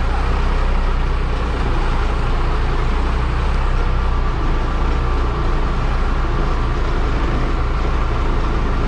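Case backhoe loader's diesel engine running steadily, with a deep low hum.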